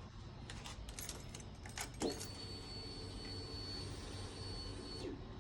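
Car keys jangling, then a knock as the ignition is switched on and a steady high-pitched electrical whine that holds for about three seconds before cutting off.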